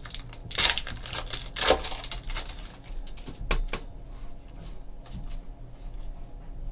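Trading card pack being opened and its cards slid out and handled: a few short rustling scrapes in the first four seconds, then faint handling noises.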